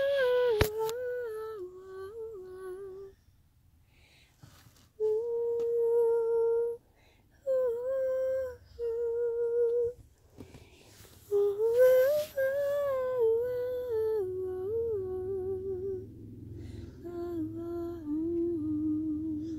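A woman humming a slow, wordless lullaby tune to a toddler nursing to sleep, in long held notes and short phrases with pauses between them. A sharp click sounds just after the start.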